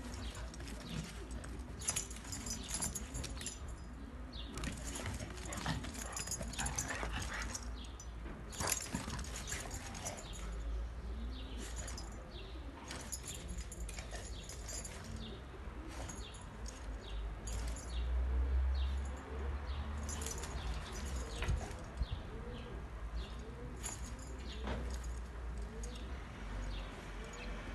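Two dogs, a pit bull and a black dog, play-fighting: scuffling on dirt with dog noises, broken by many short sharp scrapes and knocks.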